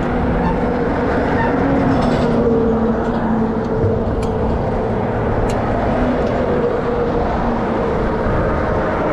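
Heavy highway traffic passing close by: a steady loud rumble of engines and tyres with engine tones drifting up and down, and a couple of light clicks a little past the middle.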